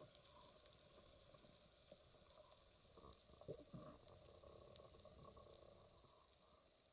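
Faint underwater ambience picked up by a camera underwater: a steady high hiss with scattered small clicks and crackles, and a couple of brief low sweeps about halfway through.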